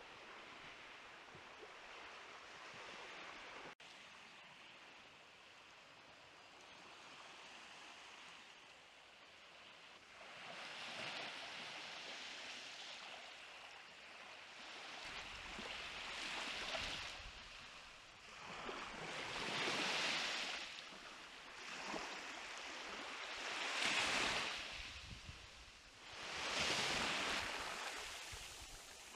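Small waves washing up on a sandy beach, each one swelling and fading every few seconds, louder in the second half. Before them there is only a faint steady hush.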